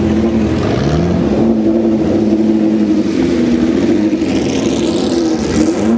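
Eagle Mk 1's 3-litre Weslake V12 racing engine running at low revs as the car rolls by slowly, its pitch rising and falling with repeated throttle blips.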